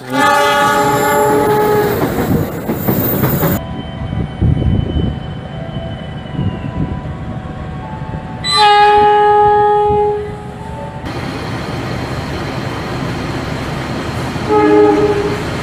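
Diesel locomotive horns sounding over the low rumble of trains: a horn chord at the start, another about eight and a half seconds in, and a short blast near the end, with the background changing abruptly between scenes.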